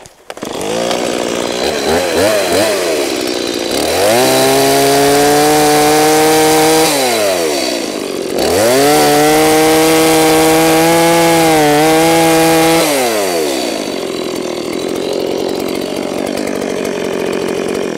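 Two-stroke Stihl chainsaw revved and cutting into a log at full throttle in two long passes, its pitch sagging slightly under load, then dropping back to idle for the last few seconds.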